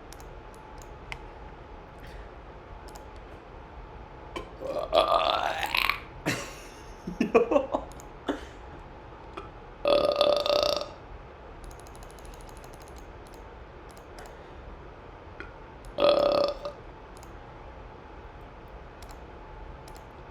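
A person burping several times: a long burp about five seconds in that rises in pitch, a few short ones just after, then a burp of about a second near ten seconds and another near sixteen.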